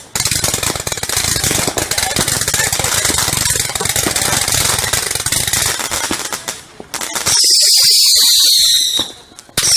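Fireworks: about six seconds of dense, rapid crackling and popping, then a loud whistling firework screaming with a falling pitch for under two seconds. A second whistle starts right at the end.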